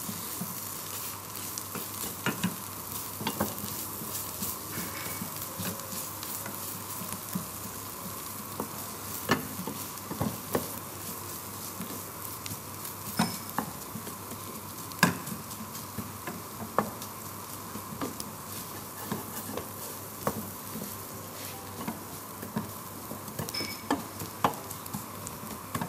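A wooden spoon stirring and scraping flour in a small frying pan as it dry-toasts over a gas flame, with irregular taps and scrapes of the spoon against the pan over a steady hiss.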